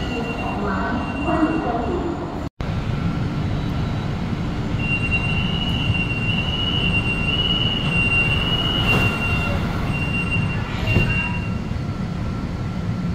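Fuzhou Metro Line 4 Type B metro train heard from inside the car: a steady low rumble of the running train, with a high, thin squeal held for several seconds in the middle.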